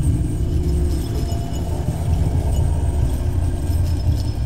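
Dark ambient horror soundscape: a deep, steady low rumble with faint, thin high ringing tones scattered above it.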